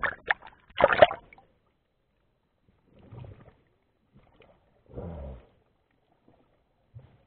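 Water splashing loudly as a spearfisher ducks under from the surface, the biggest splash about a second in. It is followed by a few short, muffled underwater sloshes and gurgles as the diver swims down into the kelp.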